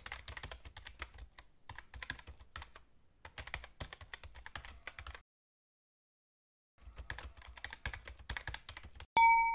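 Computer keyboard keys clicking in quick runs of typing, stopping for about a second and a half midway. Near the end a loud bell-like ding rings out and fades.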